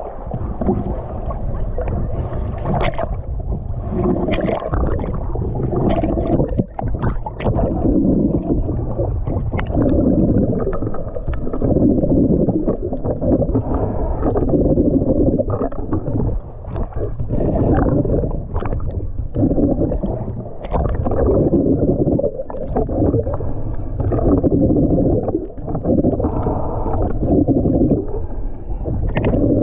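Muffled underwater sound from a GoPro in its waterproof housing: a dull, swelling water noise from the case moving through the sea, with gurgling and scattered sharp clicks.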